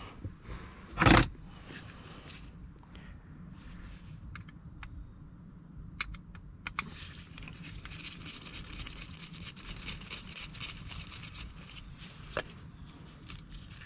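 Small metal lock-cylinder parts and keys being handled: a loud knock about a second in, then a few sharp clicks and a stretch of scraping and rattling.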